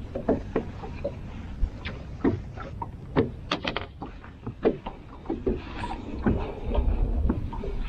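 Irregular knocks and clicks from handling gear and fish on a fishing boat, over a steady low rumble that swells near the end.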